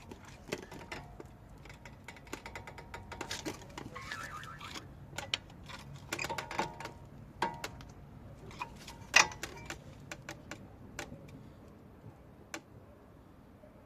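Irregular metal clicks, taps and short scrapes of tools and brake parts being handled at a car's front brake caliper while the piston is pushed back for new pads, with one sharper clack about nine seconds in.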